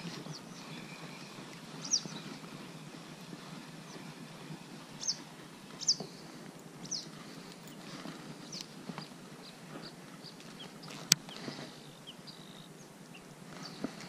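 Spinning reel being cranked on a lure retrieve, with scattered short high clicks and one sharp click about eleven seconds in.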